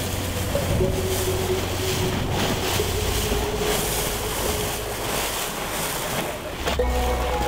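Wind and water rushing past the hull of a boat under way, a steady wash of spray and wind noise.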